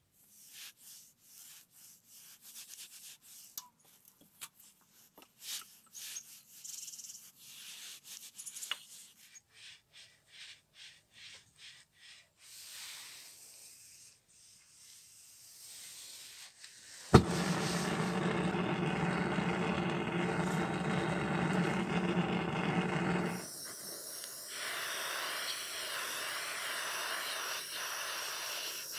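Steel-wool pad rubbing in a small metal bowl of paste in many short strokes. About 17 s in a small power tool starts with a click and runs loud and steady, then drops about 23 s in to a quieter, wavering buzz.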